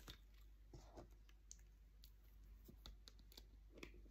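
Faint, scattered clicks of lace bobbins knocking together as pairs are crossed and twisted in bobbin lacemaking.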